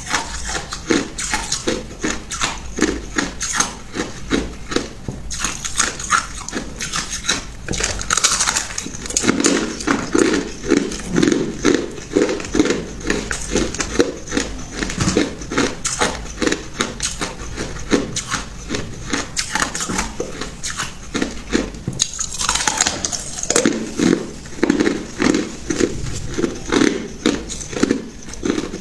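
Ice being chewed and crunched between the teeth, close to the microphone: continuous sharp crunches over a steady chewing rhythm.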